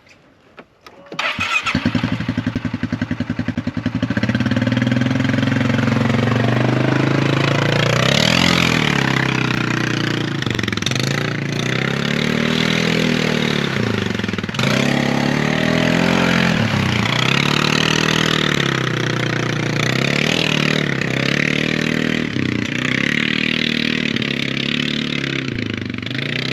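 A four-wheeler (ATV) engine starts about a second in and runs at a fast, even idle for a couple of seconds. It is then revved up and down again and again as the machine is ridden off.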